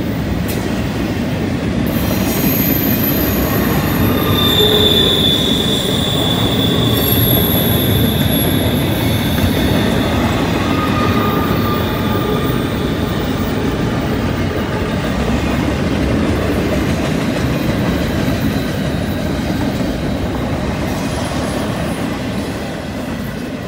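Double-stack intermodal container cars rolling past in a steady loud rumble of steel wheels on rail, with high-pitched wheel squeal on the curve from about two to twelve seconds in. The rumble eases slightly near the end.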